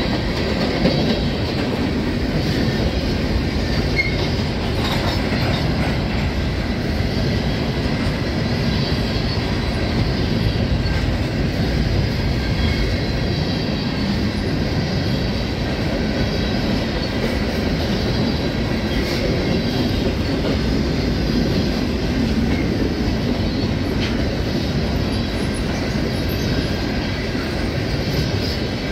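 CN covered hopper grain cars rolling past close by: a steady rumble of steel wheels on rail, with the wheels clicking over the rail joints and a faint high wheel squeal.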